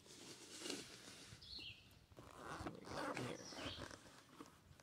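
Faint handling sounds: soft rustles and light bumps as a zippered hard-shell accessory case with a mesh fabric cover is grabbed and slid across a table.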